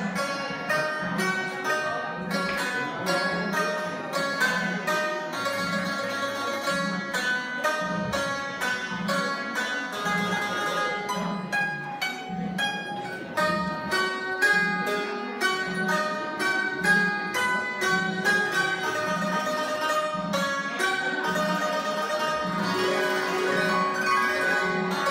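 Vietnamese đàn tranh zither played solo: a quick melody of plucked, ringing notes over a low note repeated steadily about once every second.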